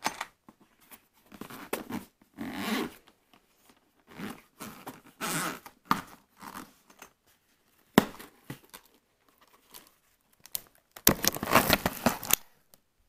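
Zipper of a hard-shell carrying case being drawn open around its edge in several separate pulls, with a sharp click about eight seconds in.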